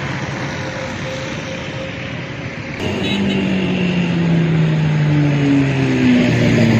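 Road traffic noise: a steady hum of passing vehicles. About three seconds in the sound jumps louder, and a vehicle engine's drone slowly falls in pitch as it goes by.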